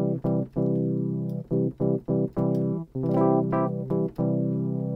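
Logic's Retro Synth in analog mode playing a low square-to-pulse wave patch through a resonant 24 dB low-pass filter. It plays a run of about nine notes, some short and some held, with a muted, squelchy tone that turns brighter about three seconds in.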